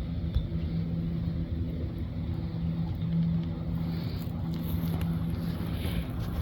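Motorboat engine running with a steady drone and rumble on the river.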